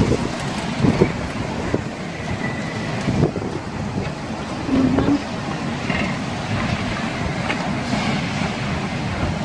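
Storm wind blowing hard, a steady rushing noise with low gusts buffeting the microphone every second or two.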